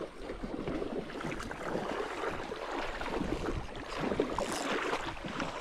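Water sloshing and splashing as feet wade through a shallow, rocky creek, steady and unbroken.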